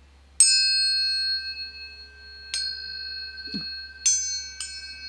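Planetary tuning forks for the Sun, Moon and Jupiter struck one after another: four sharp strikes, each leaving clear high tones that ring on and overlap.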